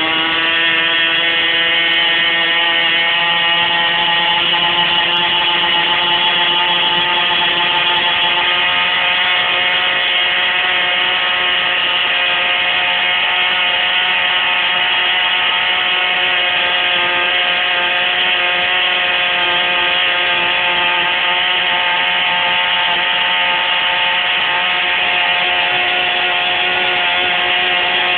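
Raduga-7 two-stroke engine running steadily at high speed on its first run, a loud, even buzz that holds its pitch throughout.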